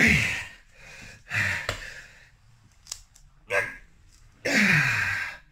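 A man breathing hard with effort during ab roller reps near the end of an exhausting set: heavy exhales every second or two, some sliding down in pitch, with a longer hard exhale near the end.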